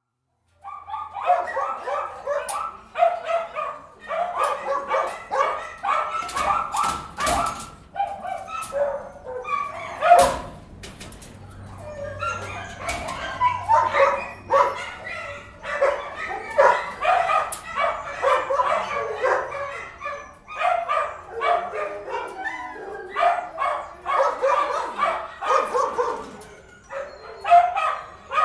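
Many dogs barking at once in a kennel, overlapping and nearly continuous, with some yips and whimpers mixed in. A sharp knock sounds about ten seconds in.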